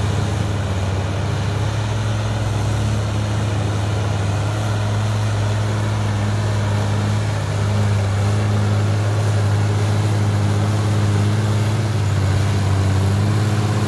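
SAME Iron 160 tractor's diesel engine pulling a mounted plough through heavy soil, a steady low drone under load that grows a little louder about halfway through as the tractor comes closer.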